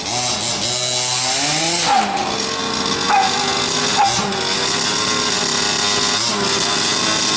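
Large-scale RC buggy's two-stroke engine revving up and down several times, with short throttle blips, then running at a steady speed for the rest.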